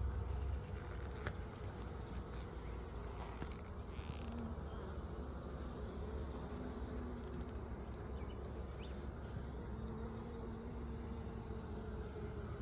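Honey bees buzzing in a steady hum over an open hive, with single bees droning louder as they pass now and then.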